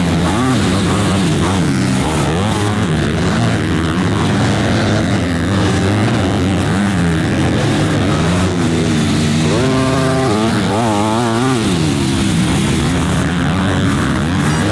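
Several motocross bikes racing on a dirt track, their engines revving up and down as the riders work the throttle and shift, with a burst of wavering revs about ten seconds in.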